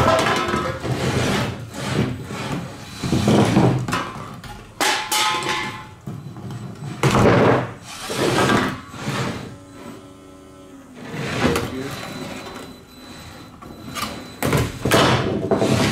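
A 3-pound beetleweight combat robot driving in short bursts across a wooden tabletop, its drive motors whirring as it knocks into empty aluminium cans, with repeated knocks and clattering.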